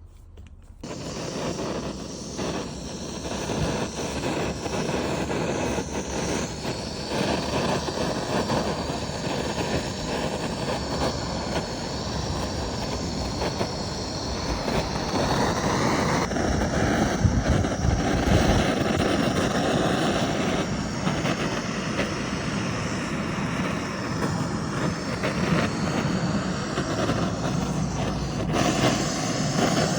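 Woodworking power tool running steadily, switched on about a second in.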